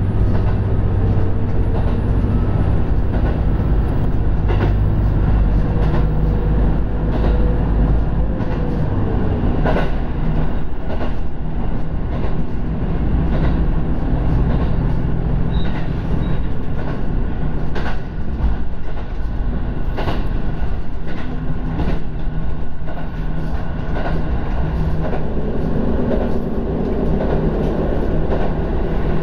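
Diesel railcar running, heard from inside the cab: a steady engine drone under the wheel and rail noise, with scattered clicks as the wheels pass over rail joints. About eight seconds in, the low engine note eases off.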